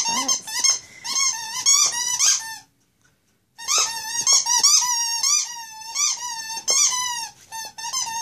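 Squeaky plush toy being chewed by an Australian Shepherd puppy: quick runs of high squeaks, one lasting about two and a half seconds, then after a pause of about a second another run of several seconds.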